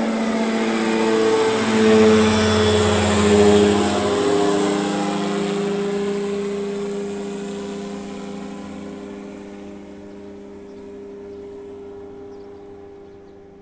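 Microlight trike's engine and pusher propeller passing overhead: the drone is loudest and drops in pitch about two to four seconds in as it goes by, then fades steadily as the trike flies away.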